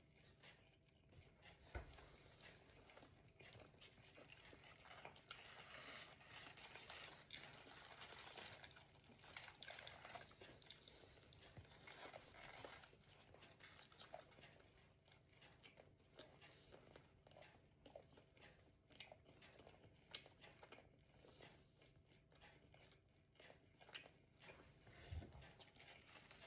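Faint chewing and crunching of fried food, with many small crackles and clicks. There is a soft low thump about two seconds in and another near the end.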